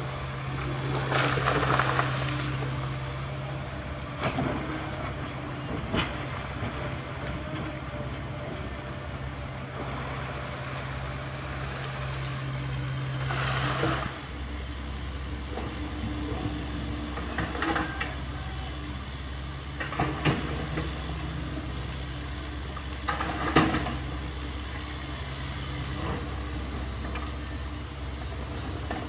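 CAT 307E mini excavator's diesel engine running steadily as it works. Several times, stones and gravel clatter and knock as the bucket dumps rock onto a spoil pile. The engine's hum drops lower about halfway through.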